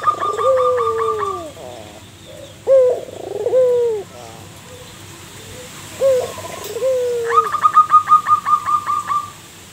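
Zebra dove (perkutut) cooing: pairs of low notes, a short note followed by a longer falling coo, repeated about every three seconds. At the start and again near the end, a quicker, higher series of about a dozen rapid notes from another bird sounds over the coos.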